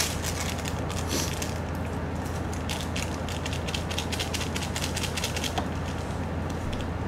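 Paper-foil lids being peeled back from Yukgaejang cup-noodle bowls: a dense, continuous run of crinkling crackles over a steady low hum.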